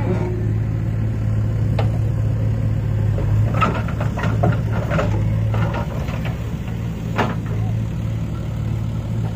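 Mahindra 575 DI tractor's four-cylinder diesel engine running steadily. A clatter of knocks comes from about three and a half to five and a half seconds in, with one more a little after seven seconds, as a loader bucket tips its load into the trolley.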